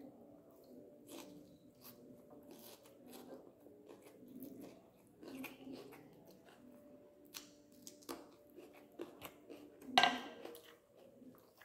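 A person eating string hoppers with curry by hand close to the microphone: wet chewing and mouth smacks, with many small clicks. One brief, louder sound stands out near the end.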